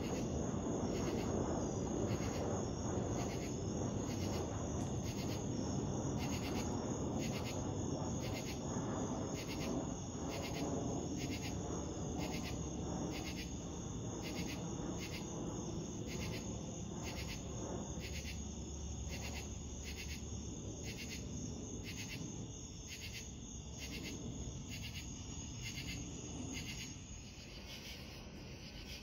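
Jet airliner's engines passing overhead, a broad rumble that slowly fades as the plane flies away. Under it, insects chirp in a steady rhythm, about three chirps every two seconds.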